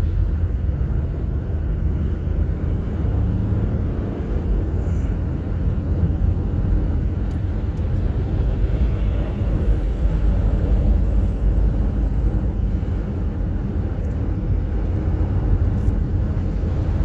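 Steady low rumble heard inside a moving car: tyre and engine noise while driving on a snowy highway.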